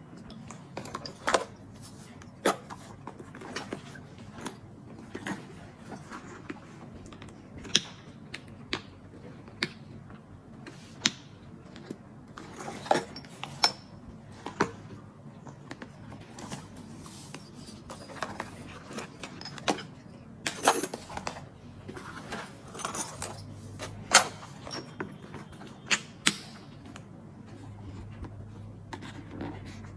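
Hands handling a small crocodile-embossed calfskin handbag and packing small bottles into it: scattered, irregular clicks, taps and knocks of bottles, leather and hardware, a few louder knocks about two-thirds of the way through.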